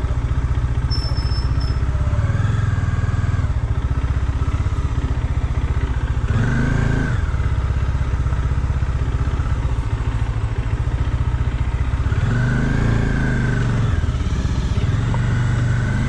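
Bajaj Dominar 400's single-cylinder engine running at low road speed. Its revs rise and fall about four times as the rider works the throttle.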